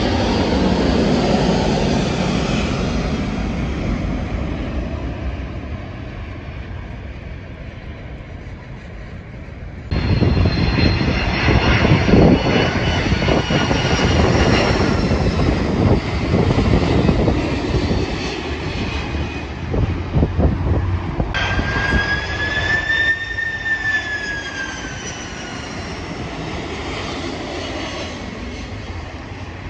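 Jet engines of an Emirates Airbus A380, a steady roar fading as the plane flies away. About ten seconds in it is cut to a Qantas Airbus A330 passing low on approach: a loud jet roar with engine whines falling in pitch. About twenty seconds in, after a second cut, a clear whine rises and then falls as the roar tails off.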